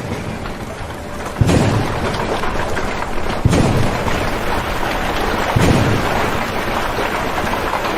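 Thunderstorm sound effect: steady heavy rain with low rolling thunder booms about every two seconds, three of them.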